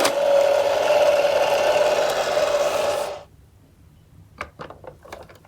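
Toy minicar ambulances rolling down a cardboard slope with a steady rattling rumble of small wheels. It stops abruptly about three seconds in, followed by a few light clicks.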